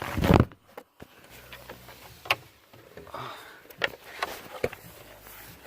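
A dog moving about inside a pallet dog house: a few scattered light clicks and knocks on the wooden slats, after a short breathy rush at the start.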